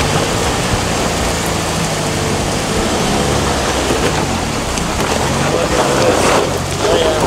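Ford Bronco's engine running steadily as it drives through a water crossing, with water splashing and churning around the truck.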